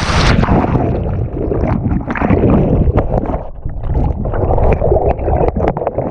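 Sea kayak capsizing in surf: a rush of white water over the camera. About a third of a second in, the sound turns muffled, a loud churning rumble as the camera goes under, with scattered knocks and clunks.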